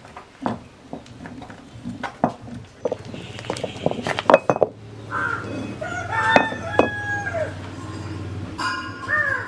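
Hand-turned stone wet grinder working urad dal batter: the stone pestle clicks and knocks irregularly against the stone mortar. From about halfway through, birds call several times over it.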